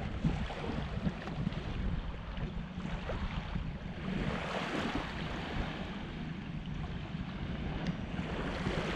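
Wind buffeting the microphone over the steady wash of surf, with the water noise swelling twice.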